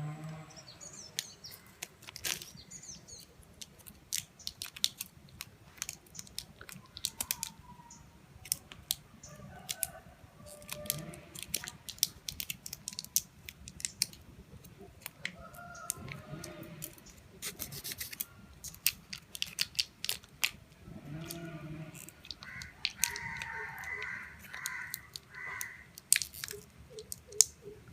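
Short sharp clicks and small scraping noises of hands taking off portions of M-seal epoxy putty from its two sticks. About 23 seconds in, a bird calls several times in quick succession, a crow-like caw.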